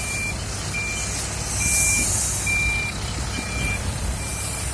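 Tractor engine running steadily with a high electronic beep repeating about once a second over it, and a brief hiss about two seconds in.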